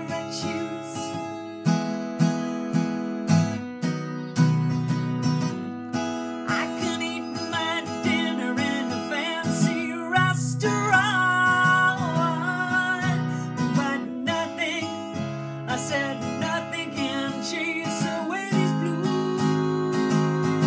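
Acoustic guitar strummed in chords, with a woman singing over it for stretches in the middle and near the end.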